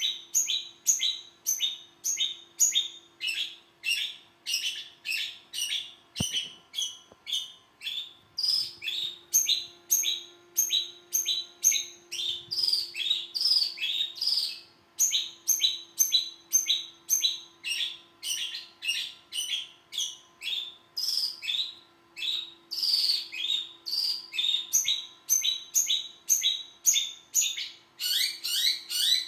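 Long-tailed shrike (cendet) singing a continuous string of short, sharp repeated notes, about two or three a second.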